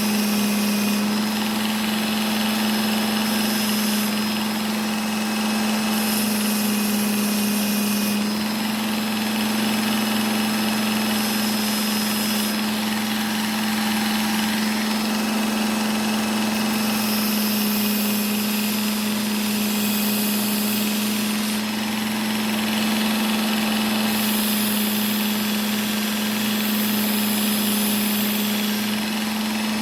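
Work Sharp Ken Onion Edition electric belt sharpener running with a steady hum while a small whittling knife blade is drawn across its fine 1200-grit belt in repeated passes. A higher hiss comes and goes every few seconds as the blade meets and leaves the belt.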